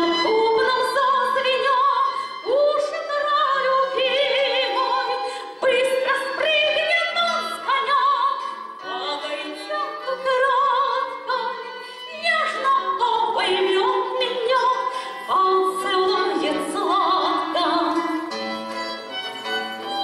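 Woman singing a Russian song with a wavering vibrato, accompanied by acoustic guitar and violin.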